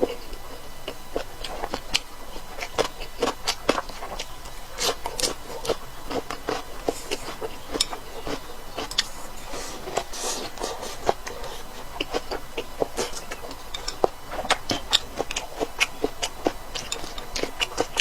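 A person chewing and crunching food: an irregular run of short, crisp clicks.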